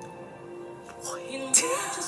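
Slow ballad music playing back with steady sustained accompaniment tones. A brief, loud vocal sound cuts in about a second and a half in.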